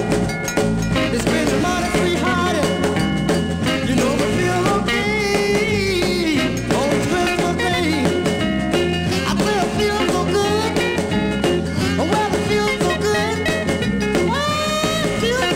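A 1961 blues and rhythm-and-blues record playing: a voice singing over piano and a band, with a steady beat and a walking bass.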